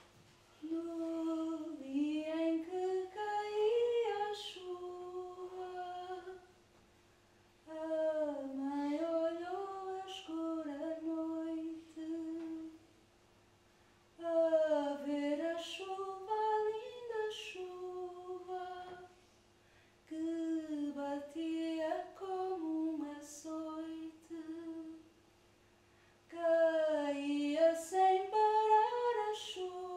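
A woman singing a slow melody in five phrases, each a few seconds long, with short pauses between them.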